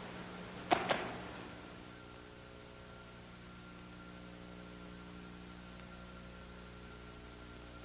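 Steady electrical hum with many overtones on an old film soundtrack, with two sharp clicks close together a little under a second in.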